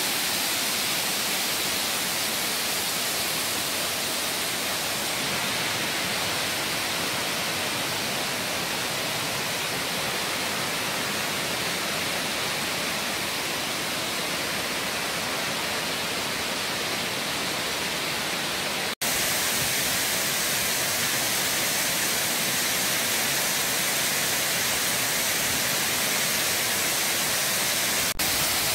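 Waterfall pouring over a broad rock face: a steady rush of falling water, broken by a brief cut about two-thirds of the way through, after which it comes back slightly louder.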